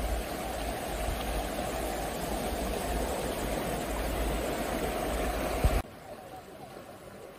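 Clear spring-fed stream rushing over shallow rapids, a steady noise of running water. About six seconds in it cuts abruptly to a much quieter, gentler flow.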